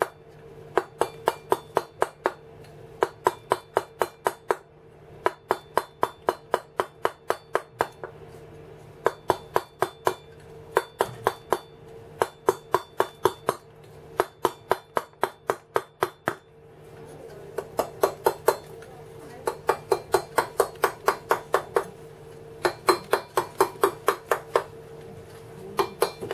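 Wooden mallet tapping a cold steel chisel into stone, carving feather detail: quick even strikes about four a second, in runs of several strokes with short pauses between.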